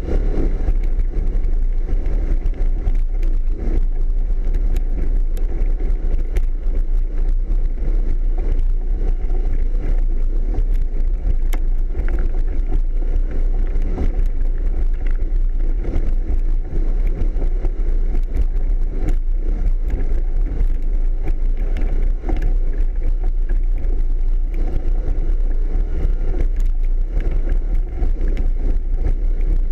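Yamaha off-road vehicle's engine running steadily as it is driven over a rocky dirt trail, a constant low rumble broken by frequent short knocks and rattles from the bumps.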